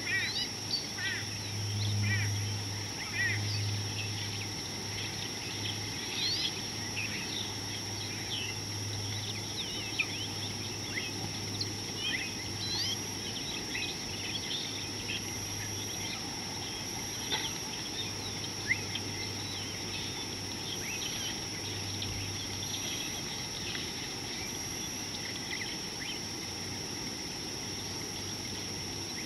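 Outdoor bush ambience: many short bird chirps and calls, busiest in the first half, over a steady high-pitched insect drone, with a low hum coming and going underneath.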